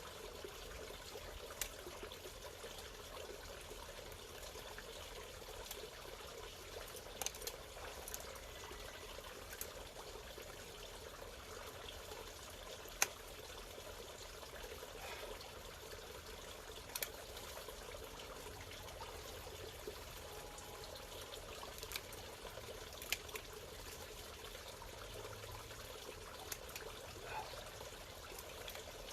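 Steady bubbling, trickling water, with a few sharp clicks scattered through it.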